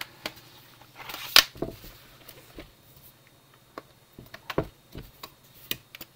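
Plastic laptop casing being handled: a short scraping rustle and a sharp knock about a second in as the laptop is turned over and set down, then a run of lighter clicks and taps as the lid is lifted open.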